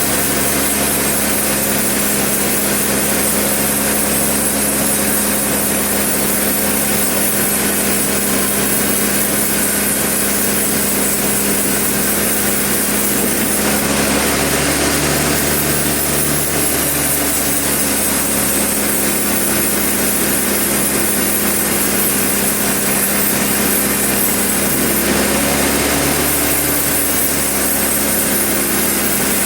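Sawmill running steadily: a motor hum with the high hiss of the saw.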